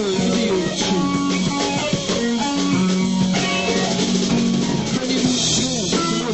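Rock band music: electric guitar playing lead lines with bent notes over a drum kit, with no singing.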